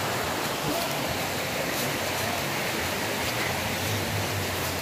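Steady rush of flowing water from a stream or river, an even hiss with no change in level.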